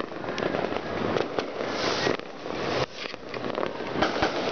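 Fireworks and firecrackers going off in a dense, continuous run of pops and crackling, easing briefly about three seconds in.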